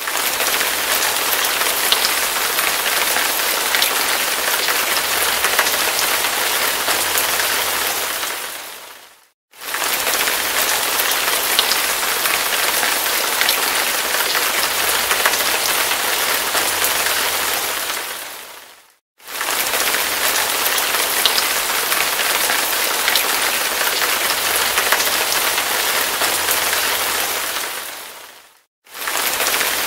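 Hard, heavy rain: a dense, steady hiss of falling drops. It fades out to silence for a moment and straight back in about every nine and a half seconds, three times, as a short rain recording repeats.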